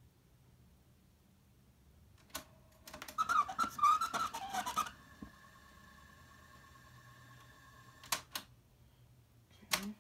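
Cassette deck buttons clunking, then the tape rewinding with play held down: for about two seconds the recording comes through as a fast, garbled chirping warble over rattling clicks. A steady whine from the deck follows until two more button clicks about eight seconds in, and there is another clunk near the end.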